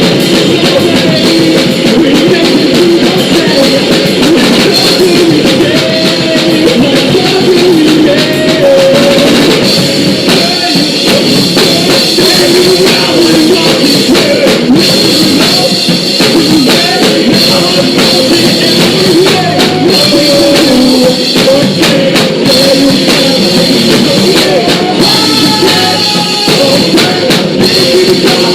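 Live punk rock band playing loud and continuous, with drum kit, distorted guitars and bass, recorded close on a phone so the sound is near clipping.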